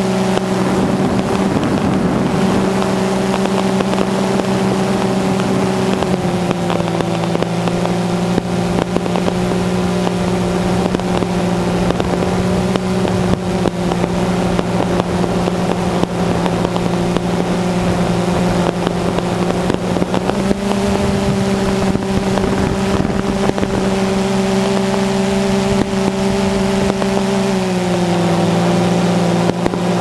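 DJI Phantom 2 quadcopter's motors and propellers, heard from the camera on board, running with a steady hum in flight. The pitch shifts slightly a few times as the motor speeds change.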